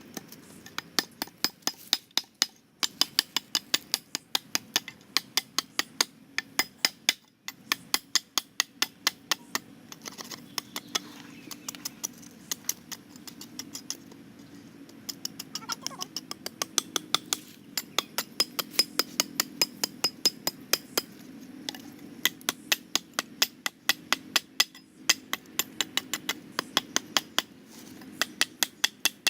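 Sharp, regular taps, about three a second, in runs broken by short pauses, over a low steady hum.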